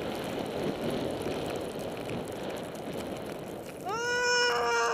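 Skis sliding and hissing over snow with wind rushing on the microphone, then about four seconds in a long shout, a young skier's voice that rises at the start and holds one steady pitch for over a second.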